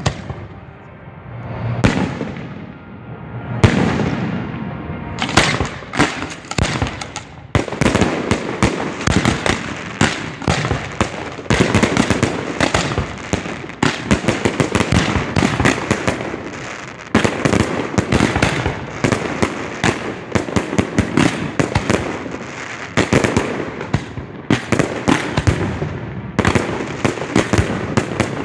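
Professional aerial fireworks heard close to the firing site: a few separate booms with ringing tails in the first seconds, then from about five seconds in a rapid, almost unbroken barrage of many bangs a second.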